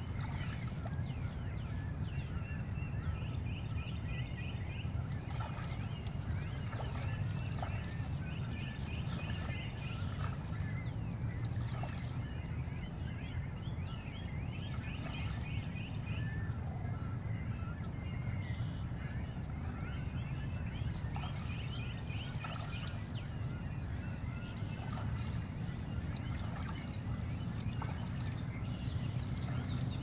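Mixed chorus of birds at a wading-bird rookery, many short calls overlapping, with one bird repeating a short trilled phrase every five or six seconds. A steady low rumble runs underneath.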